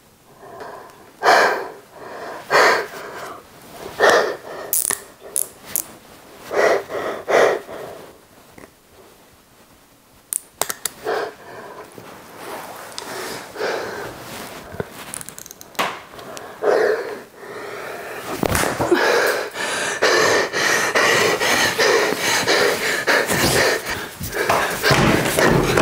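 A woman breathing hard in sharp, separate gasps a second or so apart. About two-thirds of the way through, a denser, continuous sound takes over and grows louder.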